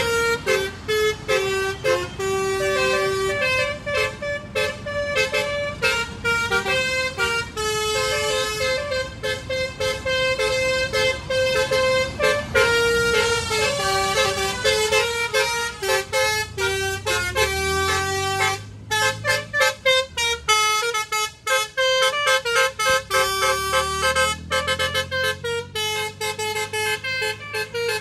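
Basuri telolet horns playing a fast melody, a quick run of short notes that change pitch in a tune. A deeper tone joins underneath about halfway through.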